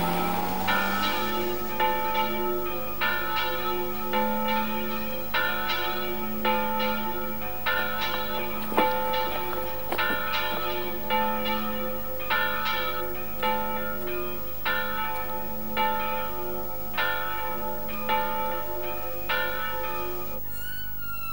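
Church bells ringing, an even run of strikes about one to two a second, each ringing on into the next. The ringing stops near the end.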